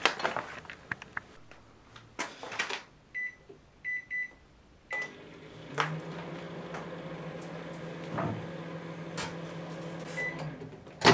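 Sharp Carousel microwave oven: its door is shut with a bang, four keypad beeps follow, then the oven runs with a steady low hum for about five seconds. A last beep and a loud latch click come as it is stopped and opened.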